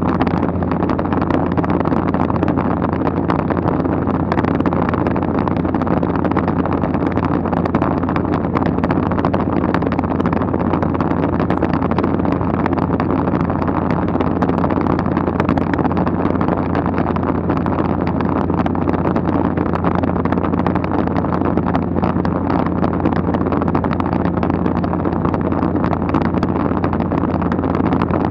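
Steady, unchanging drone of a low-flying light aircraft heard from inside the cabin, a deep hum with engine tones over it and wind rushing past the open window.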